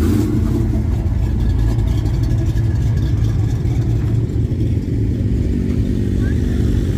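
A car engine running steadily, its sound sitting mostly low in pitch.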